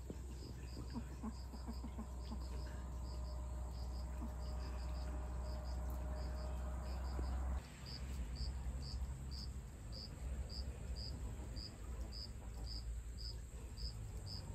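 Crickets chirping steadily, about two short high chirps a second. A low rumble runs under the first half and stops abruptly about halfway through.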